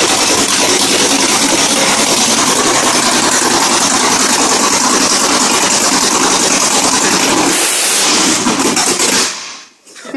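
The 1960 Chevy Apache's 496 cubic-inch big-block V8 running loud and steady, then shut off and dying away about nine seconds in.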